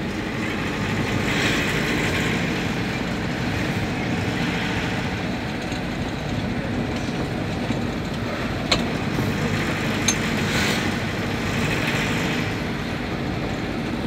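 Steady engine and road noise of a moving vehicle, with swells of rushing noise now and then and two sharp clicks about nine and ten seconds in.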